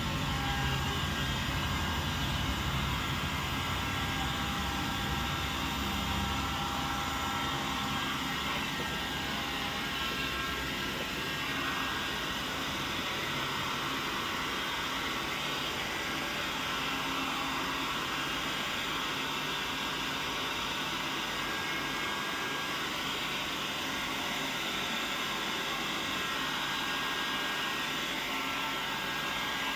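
Old hand-held hair dryer running steadily on its cold-air setting, a continuous blowing whoosh; the low rumble eases about ten seconds in.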